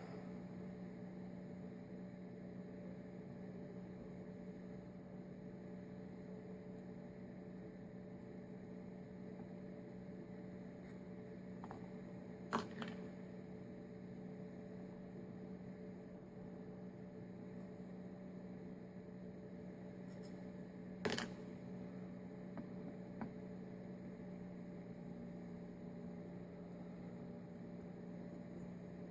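Steady electrical hum, with a few short sharp clicks: two clear ones about twelve and twenty-one seconds in.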